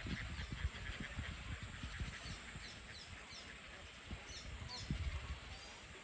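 Wild birds giving short, high, falling chirps in two quick series, over outdoor ambience. Irregular low thumps on the microphone sound underneath.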